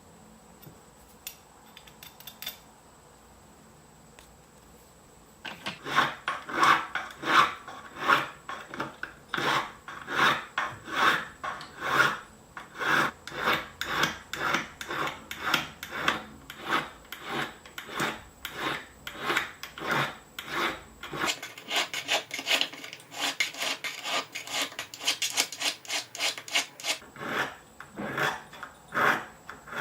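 Silver spoon being worked by hand with an abrasive, rubbed back and forth in even strokes about two to three times a second. The first few seconds are quiet, and about three-quarters of the way through the strokes become quicker and brighter.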